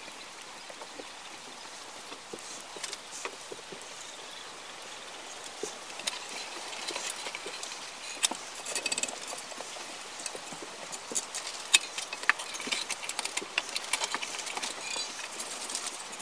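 Hand carving at a bench vise: faint scratching at first, then a busy run of sharp clicks, taps and scrapes from about six seconds in, with one louder tap. This is a chisel paring and tapping at the wooden handle of a kuksa clamped in a metal vise.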